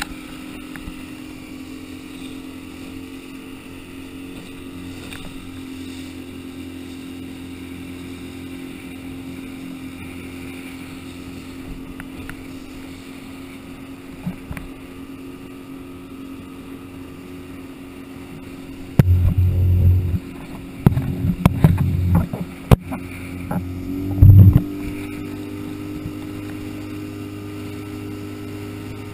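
Small outboard motor on a speedboat running steadily at speed across the water. About two-thirds of the way in comes a run of loud, low, irregular thumps lasting several seconds, and the engine note then steps up slightly.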